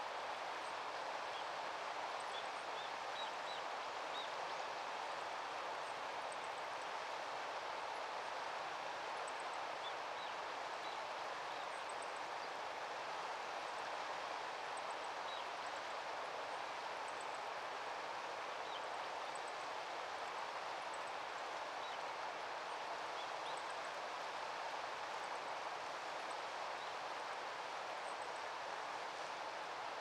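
Steady outdoor background hiss, with faint, short, high bird chirps scattered throughout.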